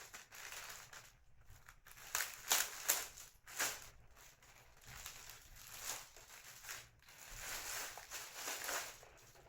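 Box packaging rustling and scraping in irregular strokes as a large speaker is pulled out of its box, loudest a few seconds in.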